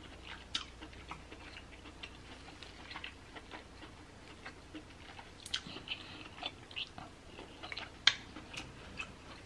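Quiet eating sounds of sauced king crab meat: soft chewing and scattered wet clicks from the mouth and fingers.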